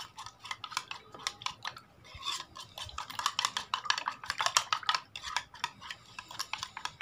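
Metal spoon beating raw eggs in a bowl: fast, rapid clicking taps of the spoon against the bowl with a wet whisking sound, and a brief lull about two seconds in.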